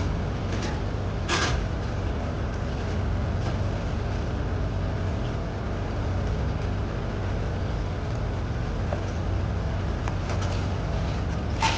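Steady low hum of a food truck's running kitchen equipment, with a sharp clack about a second and a half in and another near the end, like a door or cupboard in the truck.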